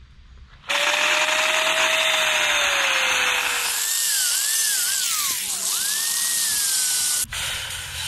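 Corded angle grinder cutting through a steel hog-wire panel: a loud, harsh grind with a whine that wavers up and down in pitch as the disc bites into the wires. It starts suddenly about a second in and cuts off just after seven seconds.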